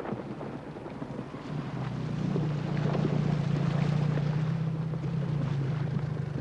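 Outboard motor of a Zodiac inflatable boat running with a steady low hum that comes in about a second and a half in, over wind noise on the microphone.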